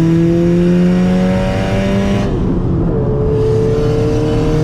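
2004 Subaru WRX's turbocharged flat-four engine pulling hard under acceleration, its pitch climbing steadily. It breaks off for a gear change a little past two seconds in, then climbs again in the next gear.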